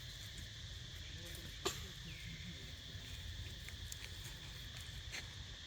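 Insects chirring steadily, with a sharp click about a third of the way in and a fainter click near the end.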